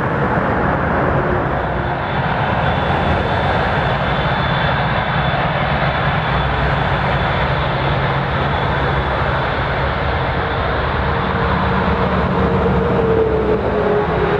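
Jet airliner engines running, a loud steady rumble with a high whine; one tone falls slightly in pitch near the end.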